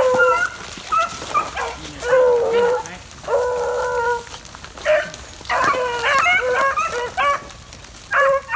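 Beagles baying as they run a rabbit's trail: a mix of short chop barks and long drawn-out bawls, with several dogs overlapping about six seconds in.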